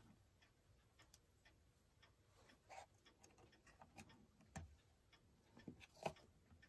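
Near silence with a few faint, irregularly spaced small clicks and taps as a brass clock's minute hand is handled and pressed onto its centre post.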